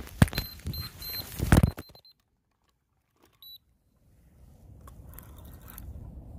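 Electronic carp bite alarm beeping in quick repeated tones as a fish takes line on a run, with loud knocks and handling noise over it. The sound drops out about two seconds in, with one more short beep about halfway through and a few faint clicks after.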